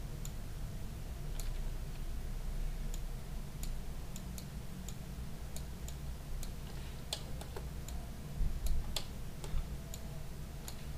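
Scattered, irregular clicks of a computer mouse and keyboard, about one a second, with a few louder ones near the end, over a steady low hum.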